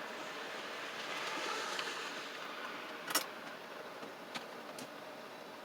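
RV air conditioner and fan running with a steady whoosh, with a sharp click about three seconds in and a fainter one a second later.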